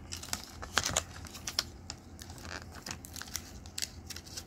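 Clear plastic blister packaging handled in the fingers, giving irregular sharp plastic clicks and crackles, most of them clustered about a second in.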